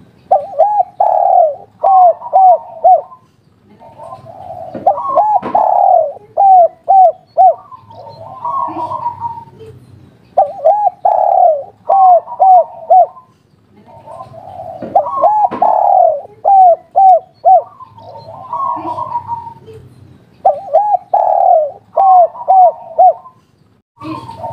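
Spotted dove of the local 'kuk 3' song type cooing its full song five times over. Each phrase opens with a soft, rough lead-in, then breaks into a run of loud looping coos that ends in a few short clipped notes.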